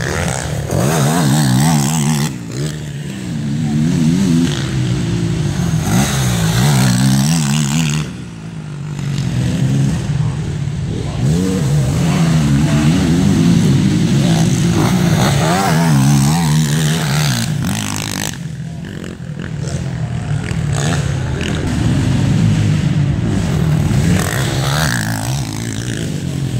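Racing ATV (quad) engines revving hard on the dirt track, their pitch rising and falling over and over as the riders work the throttle. The sound eases off briefly about 8 seconds in and again around 19 seconds.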